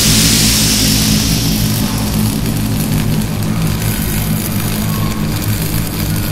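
A steady engine-like low drone, with a hissing rush that fades over the first three seconds or so.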